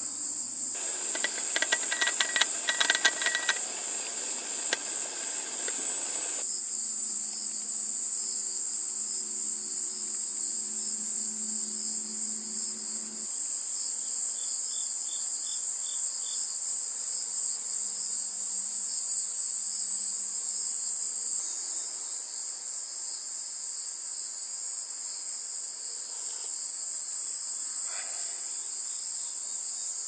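Steady high-pitched chorus of crickets, with a quick run of sharp clicks and clatter about one to three seconds in.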